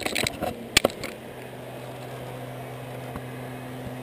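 Sharp metallic clicks of zipline gear in the first second, then a steady low hum from about a second in: a trolley pulley running along the steel zip cable.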